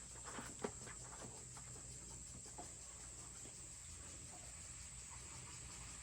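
A few light clicks and taps of plastic feeder parts and a bucket being handled in the first second or so, then only a faint steady background hum.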